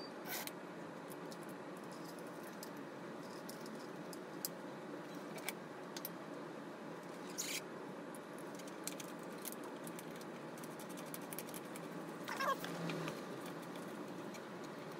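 Scattered light clicks and taps of parts and tools being handled while an e-bike is assembled, over a steady background hiss. A short falling squeak comes near the end.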